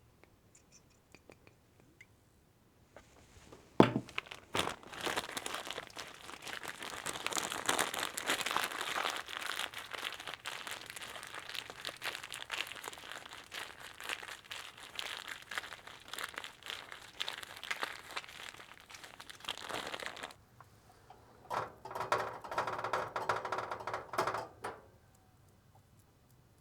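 Dense crackling, crinkling noise full of small clicks, starting with a sharp knock about four seconds in and stopping abruptly; a second, shorter burst follows a couple of seconds later.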